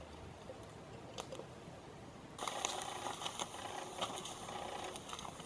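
Campfire crackling faintly, with scattered sharp pops and a steady hiss that comes in abruptly about two and a half seconds in.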